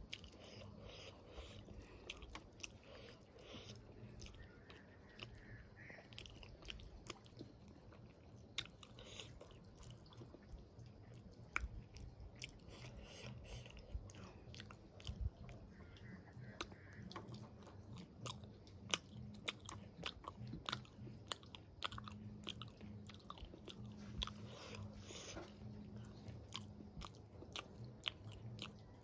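Close-up chewing of soft rice and dal, eaten by hand, with many small wet mouth clicks and lip smacks.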